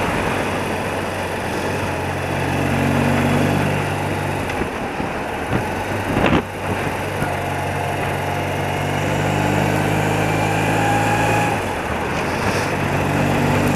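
Engine of a 30-year-old BMW motorcycle running steadily at road speed, heard from the saddle over a rush of wind noise. The engine note eases for a couple of seconds near the middle, and there is a brief knock about six seconds in.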